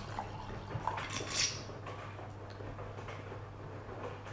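Faint handling sounds of a wine glass being lifted and sipped from, over a steady low hum, with a short soft hiss a little after a second in.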